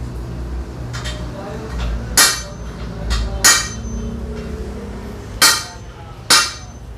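Hammer striking metal four times, spaced about a second apart, each blow ringing briefly, with a few lighter taps before them and a low steady hum underneath.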